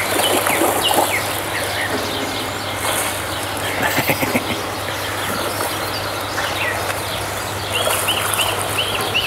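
Water splashing and churning as a tiger swims and grabs a floating wooden board in a pool. Small birds chirp throughout, with a quick run of repeated calls near the end.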